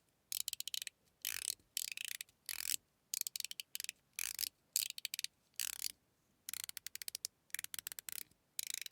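Mechanical fidget slider (Metal Toys Top F) slid back and forth by hand, giving short rattling runs of sharp clicks about twice a second.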